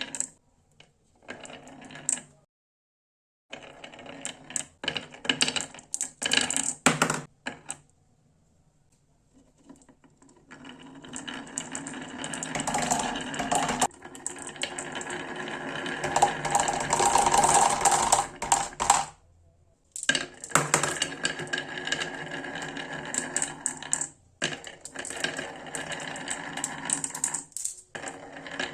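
Marbles rolling and clattering down a toy marble run, a dense stream of rapid clicks and rattles. It comes in bursts with short silent pauses between runs, the longest run lasting about eight seconds in the middle.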